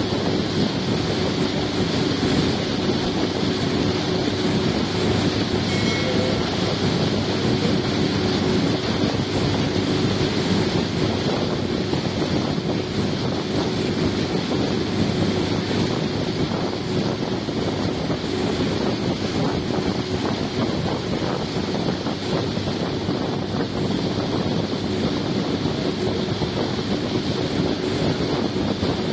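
A boat under way: a steady engine hum with the rush of churning water from the wake, and wind buffeting the microphone.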